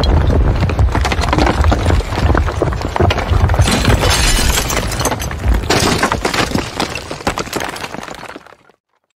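Building collapse sound effect: a heavy low rumble under dense crashing and cracking of breaking masonry and falling debris, dying down over the last few seconds and then stopping.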